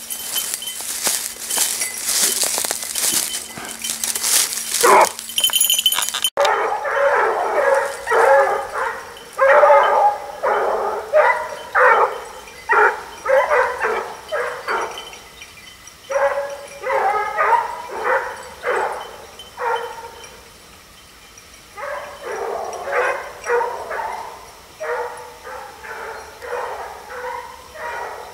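Rustling through undergrowth, then, after about six seconds, a pack of Basset Bleu de Gascogne hounds giving tongue in full cry, having just started a hare. The bays come about two a second, ease off for a couple of seconds about two-thirds of the way in, then pick up again.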